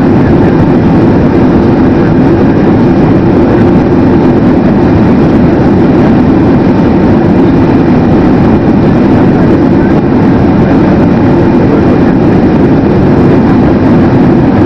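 Loud, steady roar of jet engines and rushing air inside the cabin of a Boeing 767-300, with no change or distinct bump.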